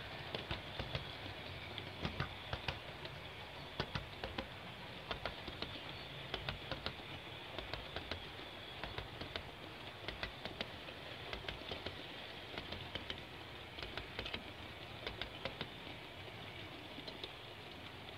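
Model freight train rolling past at speed, its wheels clicking over the rail joints in a clickety-clack, quick runs of sharp clicks over a steady rolling noise.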